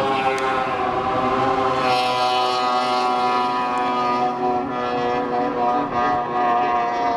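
Snowmobile skipping across open water with its engine held at high revs: a steady, high engine whine that climbs just as it begins, then holds and eases slightly lower near the end.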